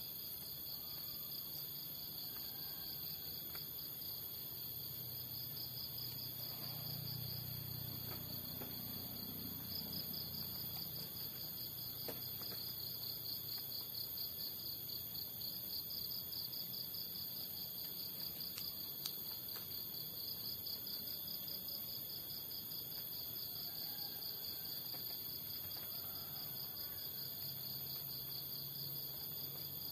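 Insect chorus: a steady, high-pitched, finely pulsing trill, with a faint low rumble partway through.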